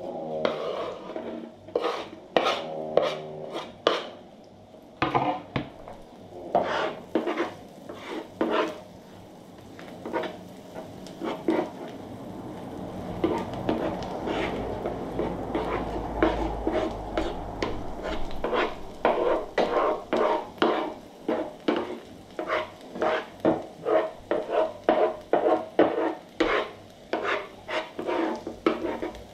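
Wooden spatula scraping and knocking on a Tefal Maxi Plancha electric griddle plate, stirring chopped food that sizzles in hot oil. In the last stretch the strokes come steadily, about two a second.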